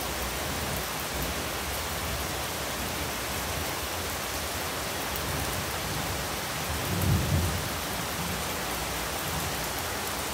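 Heavy rain pouring steadily, with a brief low rumble of thunder about seven seconds in.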